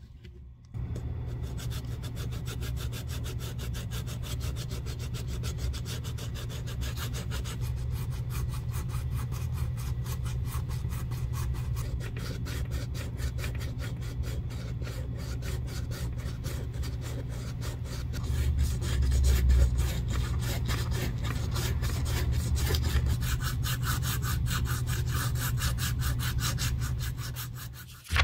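A small square of sandpaper rubbed by hand in quick back-and-forth strokes along the top edge of a leather handbag, sanding down the worn edge to prepare it for a fresh edge coat. The strokes start about a second in and stop just before the end.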